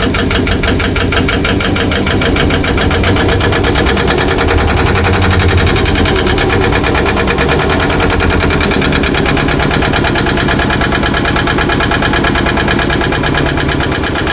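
Small inboard boat engine running at idle in its open bay under the cabin floor, heard close up, a steady even beat, shortly after it has been started.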